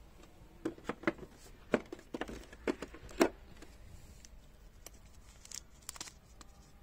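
Screwdrivers clicking and knocking against the plastic insert of a tool organizer as they are set in and lifted out, about half a dozen sharp clicks over a few seconds. Near the end, a faint rustle of the plastic sleeve around a small voltage-tester screwdriver as it is handled.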